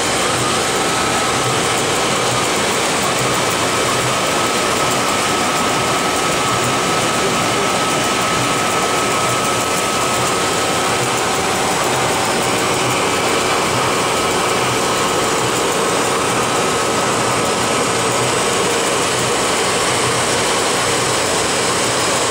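Steady machine noise of a small lab blown film line running: extruder drive and the blower feeding cooling air to the film die's air ring, a constant rushing sound with faint steady tones in it.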